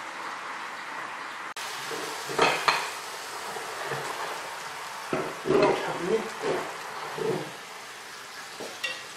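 Ceramic plates clattering and scraping against a large iron wok as braised carp and sauce are scooped out, over a steady sizzle from the hot wok.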